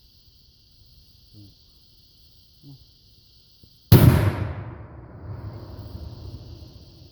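Homemade M100 flash-powder firecracker exploding inside a dishwasher about four seconds in: one sharp bang followed by a long rumbling decay over about three seconds, loud enough to blow the bottom out of the machine. A steady high insect chorus drops out at the bang and comes back a second or so later.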